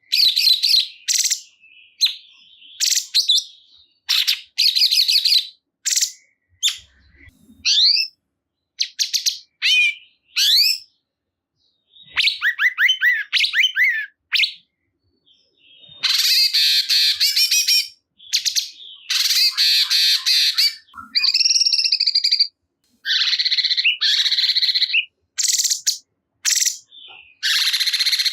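Cungkok songbird singing loudly in rapid, excited phrases: fast trills, sweeping up-and-down whistles and harsh chattering notes, with short pauses between bursts.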